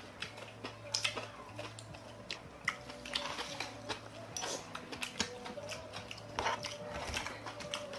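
Spoons and chopsticks clinking and scraping against metal bowls and a metal rice cup during a meal, with scattered small clicks and eating sounds. A faint steady hum runs underneath.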